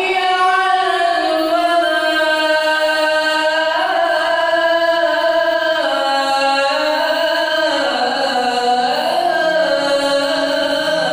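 A man chanting the adhan, the Islamic call to prayer, into a handheld microphone: one long melismatic phrase of held notes that steps down in pitch, with ornamental turns in its later part.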